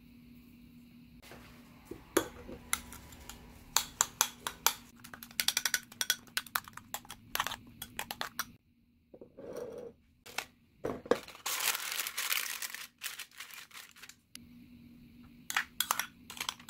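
Metal spoon beating raw egg and rolled oats in a small bowl: quick repeated clinks against the bowl, then a couple of seconds of continuous scraping and stirring, and a few more taps near the end as the batter is scraped out.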